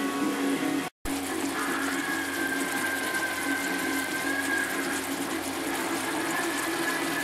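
Ground beef and chopped vegetables sizzling and crackling in a cast-iron skillet, with a steady low hum underneath. The sound cuts out for a split second about a second in, then the sizzling carries on.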